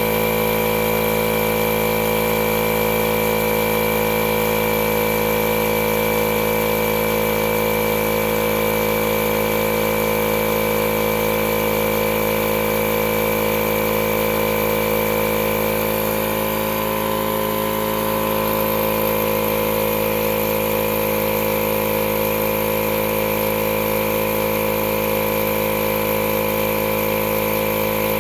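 Milwaukee cordless battery-powered air compressor running steadily as it pumps up a flat mower tire, with a slight brief dip about halfway through.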